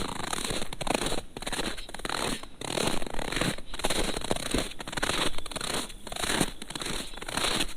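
Footsteps crunching through cold, dry snow at a steady walking pace, about two steps a second.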